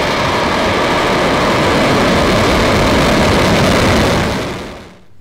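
Long March 2C rocket's first-stage engines firing at liftoff: a loud, steady rushing noise across all pitches, fading out just before the end.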